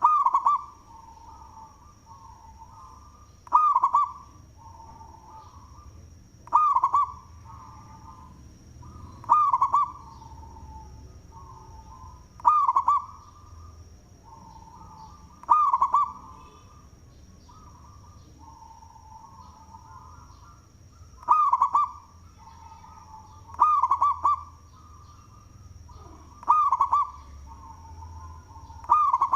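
Zebra dove (perkutut) cooing its song, a loud phrase about every three seconds, with a longer pause near the middle.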